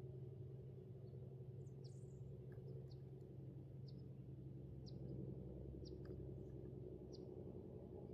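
A small bird giving short, sharp, high chip calls, about one a second, over a faint steady low hum.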